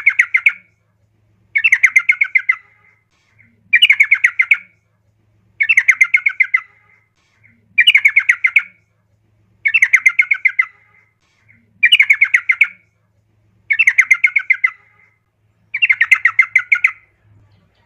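Female yellow-vented bulbul (trucukan) calling: a burst of quick chattering notes about a second long, repeated nine times at even intervals of about two seconds. It is used as a lure call to set a male singing.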